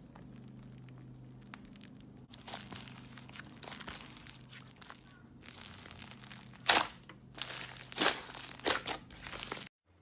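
Slime being squeezed and worked by hand, giving a run of crinkling, crackling noise that starts about two seconds in, with a few sharp, louder pops in the second half. It cuts off abruptly just before the end.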